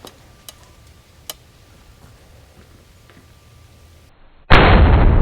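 A few faint clicks, then about four and a half seconds in a single very loud shot from an Armalite AR-50 .50 BMG single-shot bolt-action rifle, its blast ringing on and slowly dying away.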